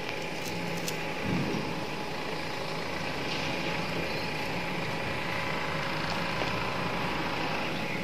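Steady background hum and hiss, with a few faint soft clicks and handling sounds of marinated paneer and vegetables being pushed onto a metal skewer by hand.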